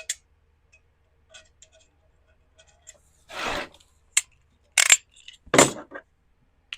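Razor blade scraping hardened glue off a ceramic pot: a few light clicks and ticks, then from about three seconds in several short, louder scraping strokes with clinks of metal on ceramic.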